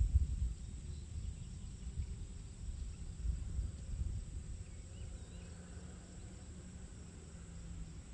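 Roadside outdoor ambience: a steady high insect buzz, gusts of low wind rumble on the microphone, and a few faint bird chirps.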